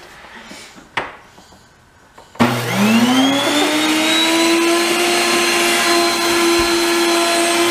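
A NutriMill electric impact grain mill switching on about two and a half seconds in, after a single click. Its motor spins up with a rising whine, then runs loud and steady as it grinds wheat into fine flour.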